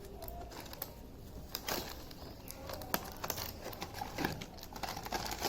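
Scattered faint clicks and light rustling of a toy's cardboard box and plastic packaging being opened by hand.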